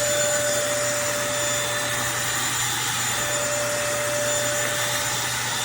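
Eureka corded stick vacuum cleaner running steadily: a rushing of air with a steady whine over it.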